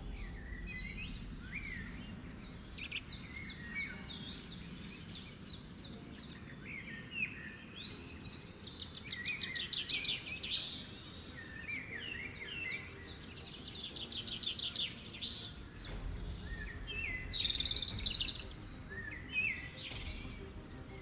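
Birds singing, with quick chirps and fast trills throughout, over a steady low background noise.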